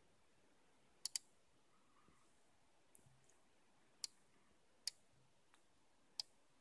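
Computer mouse button clicks: a quick double click about a second in, then four single clicks roughly a second apart, over near silence.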